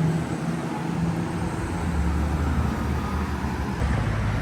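Road traffic at a busy intersection: vehicle engines running, with a low rumble that swells about two seconds in.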